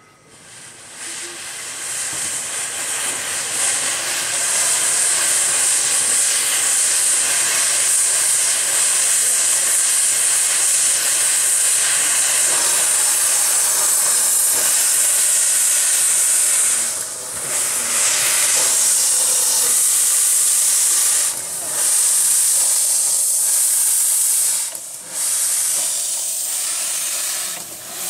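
15-inch gauge steam locomotive River Irt hissing loudly as steam blows from its open cylinder drain cocks while it starts away with its train. The hiss builds over the first few seconds, then holds steady, dropping briefly three times in the second half.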